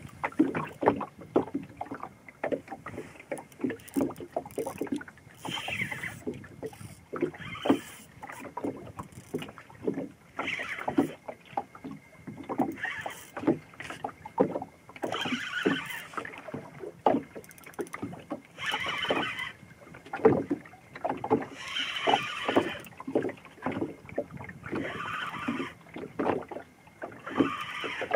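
Water slapping against a small boat's hull in short irregular knocks. Every two to three seconds there is a brief rasping whirr of a fixed-spool reel being wound in while a fish is played on a bent rod.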